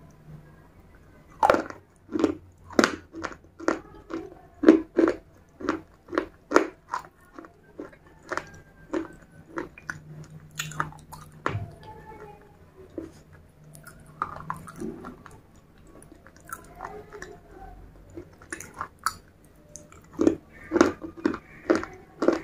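Close-miked crunching and chewing of grey slate pieces coated in wet red clay paste. It is a run of sharp crunches about two a second, thinning out in the middle and coming thick again near the end.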